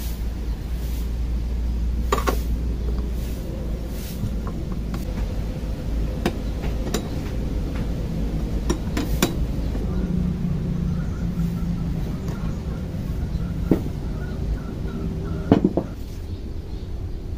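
Scattered sharp metal clicks and clinks of a bicycle saddle clamp and seat post being handled and worked with hand tools, with a louder cluster of knocks near the end, over a steady low rumble.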